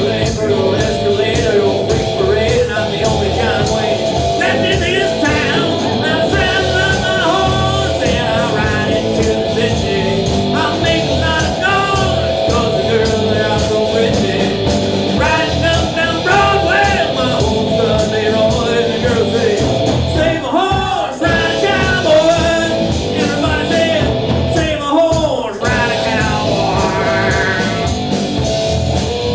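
Rock-style band music with a sung lead vocal, loud and continuous.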